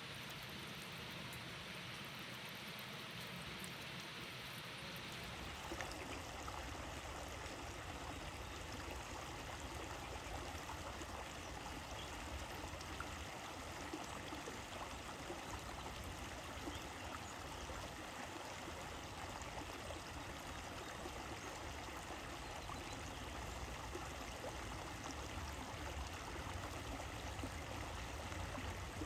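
Even rain-like hiss for the first few seconds, then a change to a running brook: a steady rush of flowing water with fine trickling.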